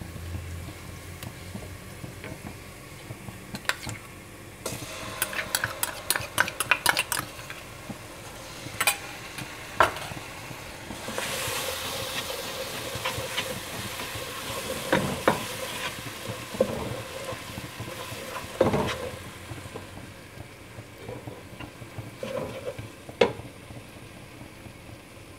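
Sliced onions sizzling in hot oil in a non-stick pot, stirred with a wooden spoon that clicks and knocks against the pot. About halfway through, tomato paste is added and stirred in, and the sizzling grows louder for a few seconds.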